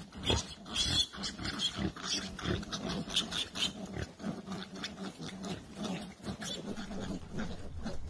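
Wild animals squealing and growling in a scuffle between cheetahs and warthogs, in many short irregular cries over a lower pitched drone.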